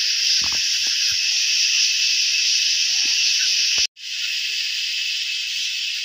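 Loud, steady, shrill buzzing of a dense evening insect chorus, breaking off for an instant a little before four seconds in.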